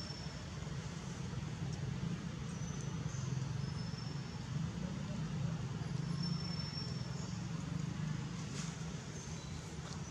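Steady low background rumble, with a few faint, short high-pitched chirps over it.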